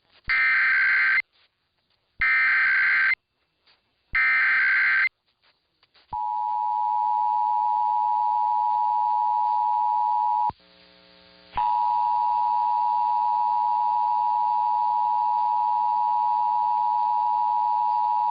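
Emergency Alert System header: three bursts of harsh digital screech, each about a second long with a second between them. About six seconds in comes the EAS attention signal, a steady two-note tone that breaks off for about a second near the middle and then resumes. Together they open an EAS message, here a required monthly test.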